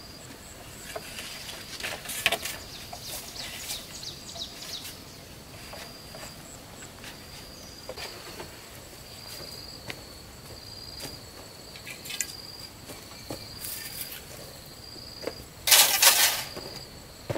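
An insect trilling on one high, steady pitch in short repeated spells, with scattered light knocks and rustles. A brief, loud noisy burst comes near the end.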